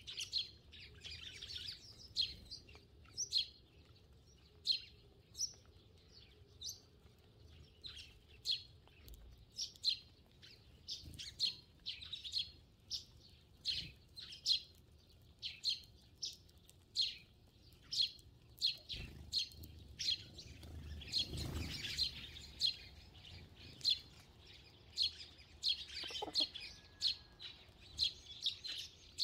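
Eurasian tree sparrows chirping over and over, short high chirps about one or two a second. A brief rush of noise about two-thirds through and a short falling call near the end.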